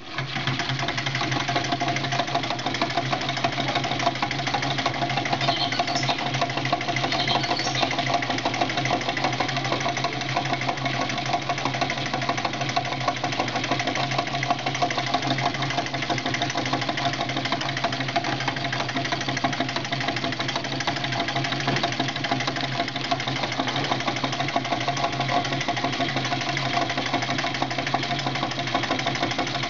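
Home-built gamma-type Stirling engine, with a beer-can displacer cylinder and a mop-handle aluminium power cylinder, starting up suddenly as its flywheel is spun by hand, then running steadily with a fast, even mechanical clatter over a steady low hum.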